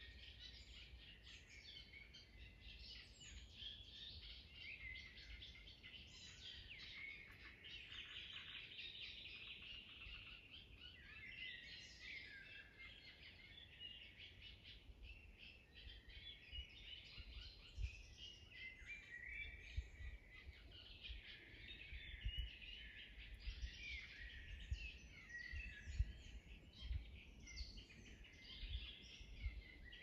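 Several wild songbirds chirping and singing, their calls overlapping throughout. Low rumbling thumps come and go beneath them, more often in the second half, and make the loudest moments.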